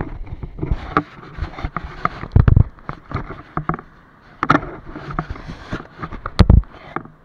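Handling noise right on the camera: a run of knocks, rubs and scrapes on its housing, with two heavy thuds, about two and a half seconds in and again about six and a half seconds in, as it is moved about and set against the rocks. It cuts off suddenly at the end.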